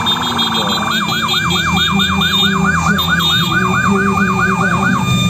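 Electronic siren on a motorcycle: a rapid warble that changes about a second in to a fast repeating yelp, about four sweeps a second, and cuts off about five seconds in. A low engine runs underneath.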